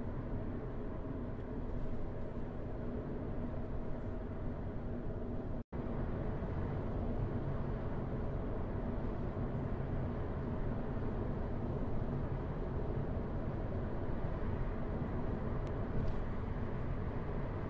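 Steady low rumble of a car driving at city speed, heard from inside the cabin: tyre and engine noise with no changes in pace. A momentary dropout to silence comes about six seconds in.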